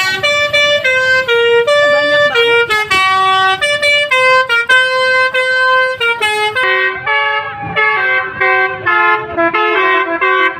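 Bus's telolet basuri musical horn playing a melody: a rapid run of held horn notes stepping up and down in pitch.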